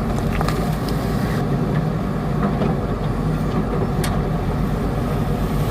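JCB backhoe loader's diesel engine running steadily, with a sharp tick about four seconds in.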